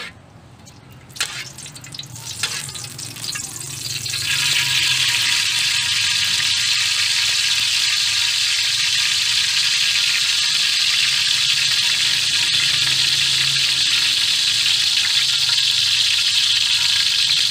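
Cooking oil heating in a metal wok: a few metal spatula scrapes and taps at first, then from about four seconds in a steady sizzle as the oil gets hot.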